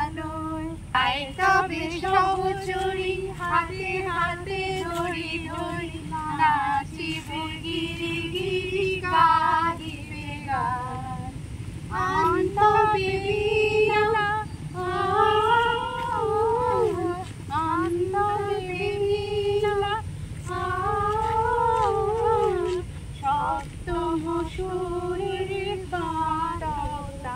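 A woman singing an unaccompanied melody in long held, gliding phrases.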